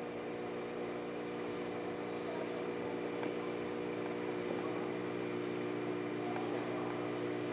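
A steady machine hum with several fixed low tones.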